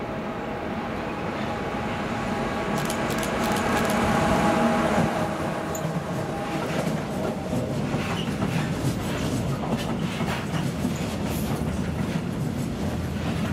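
Electric freight locomotive passing close, its steady hum of several tones rising to a peak about five seconds in. It is followed by freight wagons carrying lorry trailers rolling by, with steady rumbling and many wheel clicks and rattles.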